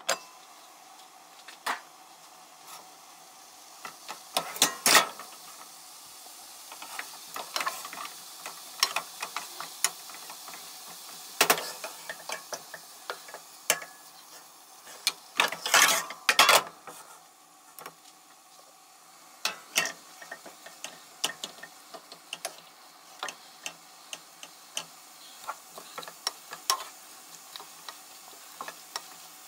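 Vegetables sizzling in a frying pan while a wooden spatula stirs and knocks against the pan, giving many sharp clicks over a steady hiss. Louder clatters of cookware come about five seconds in, at about eleven seconds and at about sixteen seconds.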